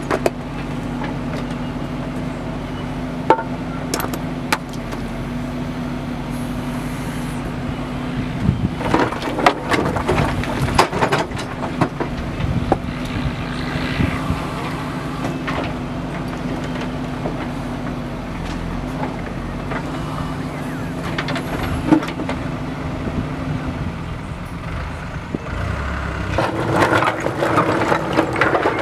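JCB backhoe loader's diesel engine running steadily while its backhoe bucket works a pile of broken stone, with scattered knocks and clatters of rock. Near the end the engine revs higher and the rattling gets busier.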